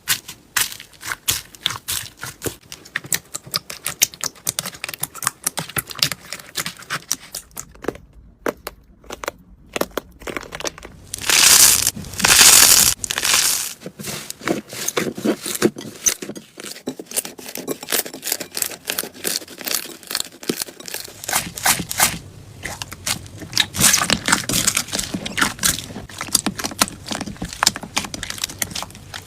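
Slime being squeezed and pressed by hand, giving dense crackling and popping clicks, with a louder, longer crinkly stretch about twelve seconds in.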